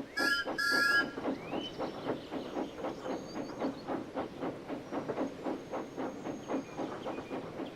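Two short steam whistle blasts, then a rake of freight wagons rolling along with a steady clickety-clack of wheels over rail joints, about four knocks a second, with faint squeaks.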